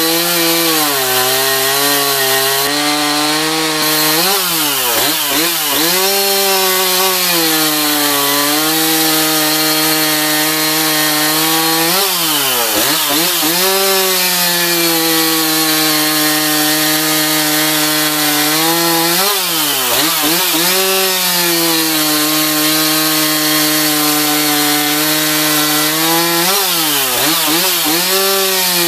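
Stihl MS260 two-stroke chainsaw running at full throttle while cutting through a log. Its engine note dips briefly and recovers several times as the chain works in the cut.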